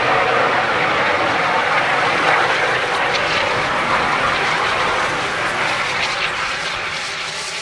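A 4.5 kg CO2 fire extinguisher discharging through its horn in a loud, steady rushing hiss, easing slightly toward the end.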